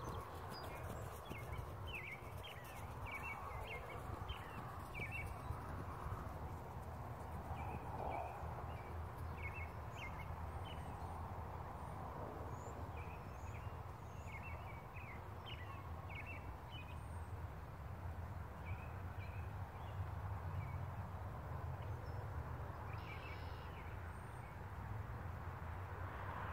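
A cantering horse's hoofbeats on grass fade out within the first second or so. After that come scattered short bird chirps over a steady low rumble.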